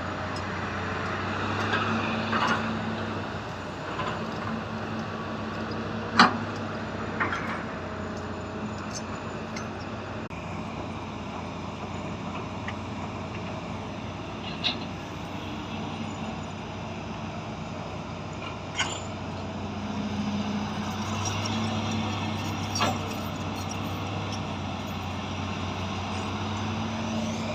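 Hydraulic excavator's diesel engine running steadily, swelling louder under load a few times as it digs, with several short sharp knocks, the loudest about six seconds in.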